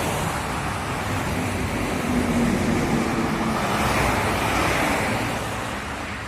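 Highway traffic on a toll road: a steady roar of tyres and engines from passing vehicles, swelling about four seconds in and fading toward the end.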